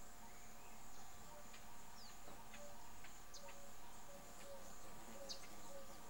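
Faint outdoor ambience: a steady high-pitched insect drone with scattered short bird chirps.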